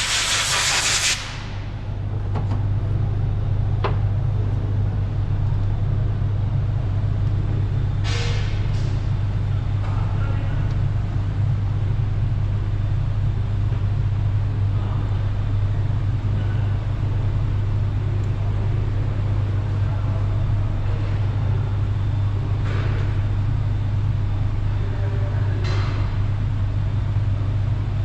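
A steady low machine hum with a short burst of hissing air that stops about a second in, then a few light clicks and knocks from work on parts.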